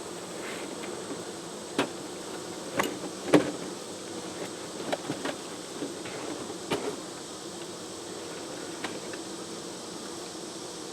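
Honeybees buzzing steadily around an open hive, with a handful of sharp clicks and knocks, the loudest about three and a half seconds in.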